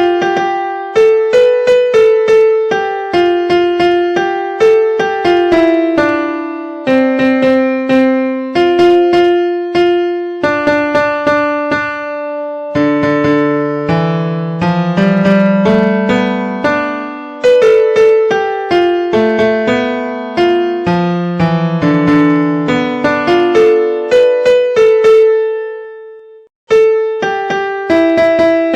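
Instrumental ringtone tune, a melody of single notes that each strike and fade. It breaks off for a moment shortly before the end and starts over.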